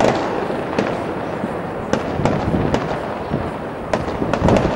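Fireworks going off from the Taipei 101 tower: a dense run of bangs and crackles that starts suddenly, with sharper cracks every second or so, coming thicker near the end.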